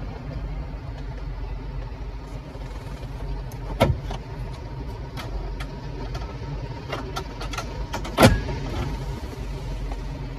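Honda Odyssey's upper-dashboard storage compartment lid being opened and closed: two sharp clicks about four and a half seconds apart, the second the loudest, with lighter clicks and taps between, over a steady low cabin hum.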